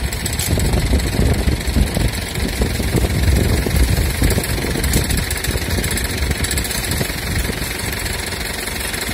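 Farm tractor engine running at low revs, a low rumble that rises and falls unevenly.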